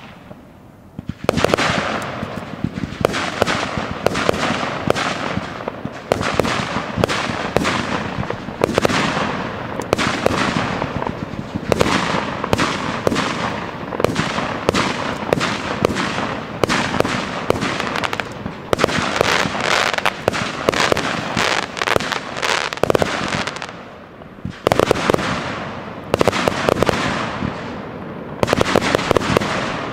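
Fireworks display: many shell bursts and bangs in quick succession, starting about a second in and going on almost without pause, with two brief lulls near the end.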